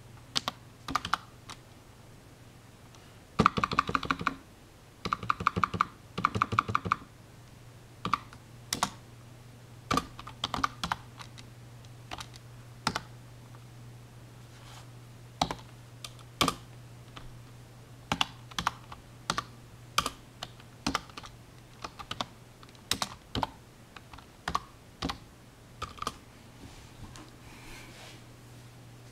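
Typing on a computer keyboard: scattered single key presses, with two quick runs of rapid keystrokes a few seconds in, over a steady low hum.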